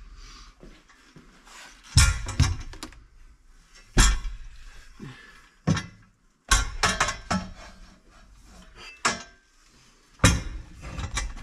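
Steel roll-cage tubes knocking and clanking against each other and the car's body as a half cage is lowered into place and test-fitted. The knocks are sharp and irregular, about a dozen of them, and the loudest come about two and four seconds in.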